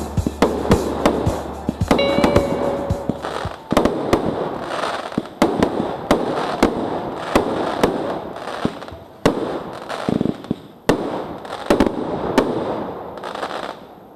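Fireworks going off: a run of irregular sharp bangs with crackling between them, over background music that stops a few seconds in.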